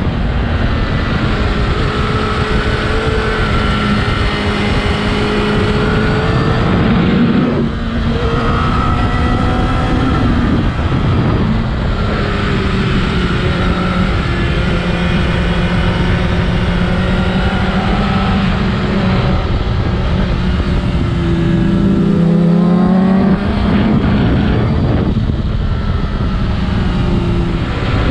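Honda CBR1000RR Fireblade inline-four engine running hard under load. Its pitch sweeps up and down, dropping briefly several times and climbing again.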